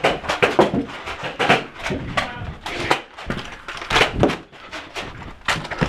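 A quick, irregular run of sharp knocks and clacks, with some duller thumps among them.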